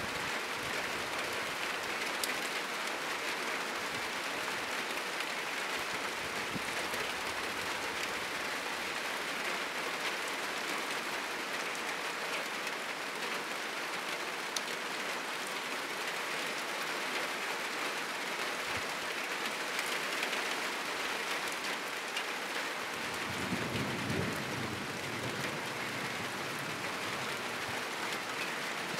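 Heavy rain falling on a roof and the trees around it, a steady dense hiss with a few scattered drips. A low rumble of distant thunder rolls in briefly about four-fifths of the way through.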